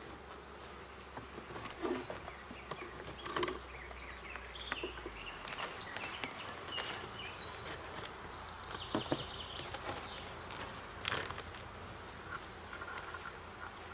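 Honeybees buzzing around an open beehive, with scattered wooden knocks and clicks as the hive boxes and frames are handled.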